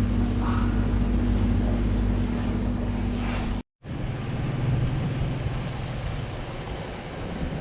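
A motor running steadily with a low rumble and windy noise, cut off sharply about three and a half seconds in, then picking up again as a second steady hum.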